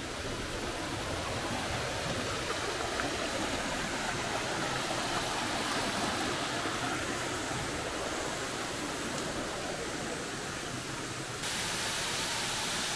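Steady rush of water from a stream cascading over rocks. About eleven seconds in it jumps suddenly to a louder, hissier rush from a waterfall.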